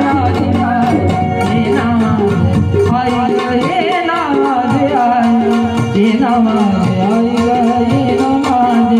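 Music of a Marathi devotional-style folk song: a gliding melody line over a steady hand-percussion beat.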